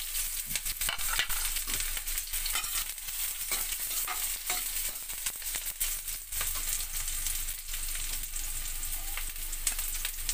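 Red onion and garlic sizzling in hot oil in a stainless steel wok: a steady hiss full of small pops and crackles.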